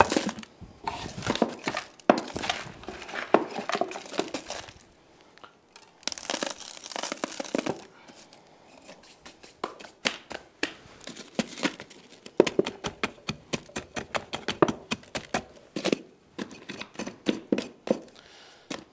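A block of wood tapping and packing stony soil backfill around a small metal culvert pipe, used as a hand tamper: light, quick taps in clusters. Gritty scraping of the fill being pushed around the pipe, loudest about six seconds in.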